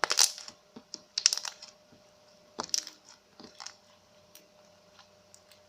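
Hands squeezing and pressing slime mixed with crunchy beads, giving crackling clusters of small clicks and pops about four times, then a few faint single clicks.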